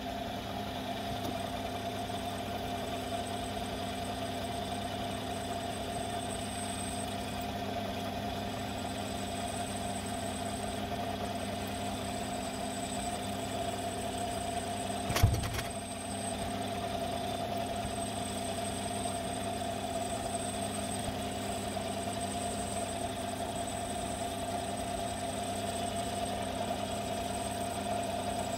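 A power tool's electric motor running steadily with a constant whine, with one short thump about halfway through.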